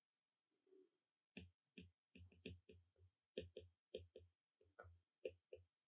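Faint taps and clicks of a stylus tip on an iPad's glass screen during handwriting, several a second in an uneven run, starting about a second and a half in.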